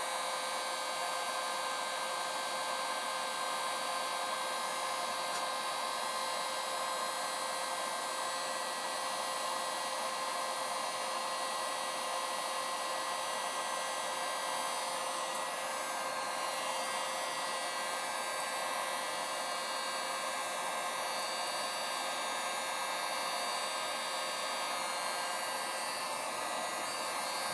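Heat gun running steadily, a blowing rush with a fan-motor whine, as it heats the inner race of a chainsaw crankcase bearing for a hot/cold crankshaft install.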